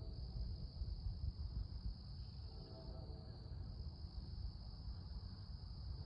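Night insect chorus of crickets, a steady high trill, over a low, uneven rumble. Faint humming tones come and go in the middle and again near the end.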